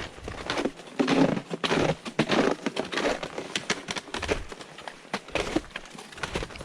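A hiker's footsteps crunching unevenly on a mountain trail during a descent.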